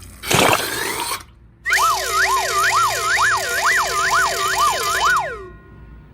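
A short noisy burst, then a siren wailing up and down quickly, about two rises a second, for about four seconds before it fades out.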